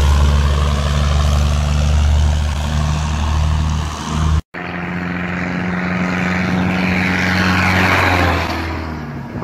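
A tractor's diesel engine running under heavy load, a deep steady drone, cut off abruptly about halfway through. Then a second engine's steady drone with rushing wind and road noise that swells and fades near the end.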